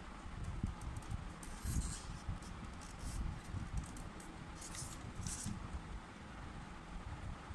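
Handling noise of wooden ice-cream sticks and a hot glue gun being worked by hand: soft knocks and rumble throughout, with short hissy rustles about two seconds in and again around five seconds in.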